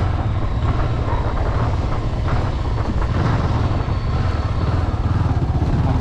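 Honda motorcycle's engine running steadily while riding, its firing pulses heard as a fast, even low throb under road noise.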